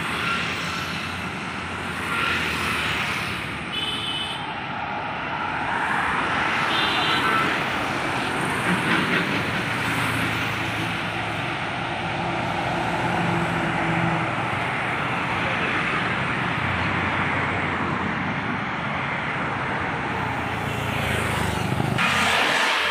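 Highway traffic passing close by: motorcycles, scooters, cars and an APSRTC bus, a steady rush of tyre and engine noise. A low engine hum swells as the bus goes by about halfway through, and there are a couple of short high beeps near the start.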